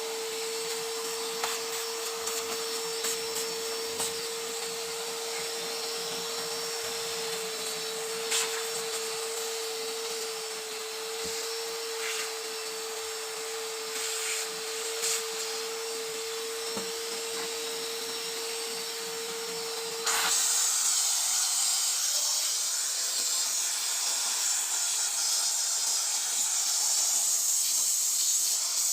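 Radio hiss with a steady whistle tone over it and a few faint clicks; about twenty seconds in the whistle stops and the hiss turns louder and brighter, like the set tuned between stations.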